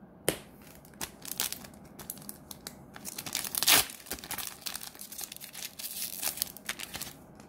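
A foil-lined Weiss Schwarz booster pack being torn open by hand, its wrapper crinkling, with the loudest tear a little under four seconds in.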